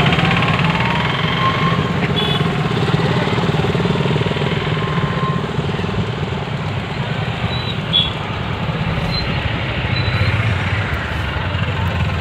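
Motorcycle and other vehicle engines running close by on the road: steady traffic noise.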